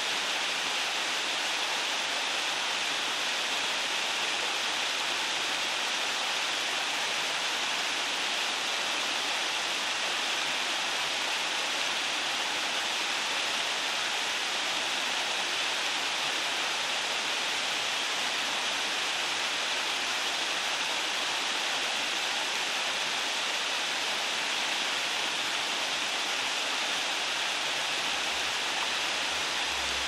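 Waterfall: a steady, even rush of falling water, with no change in strength.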